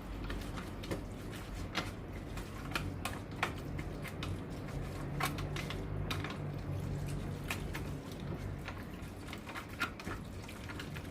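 Raw pork being mixed with its marinade in a bowl: irregular wet squishes and light clicks, one or two a second.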